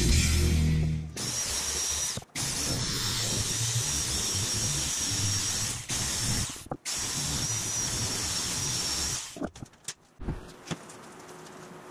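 Handheld electric sheet-metal shear running with a steady high whine as it cuts through aluminum sheet, cutting out briefly twice and stopping about nine seconds in, followed by a few light clicks.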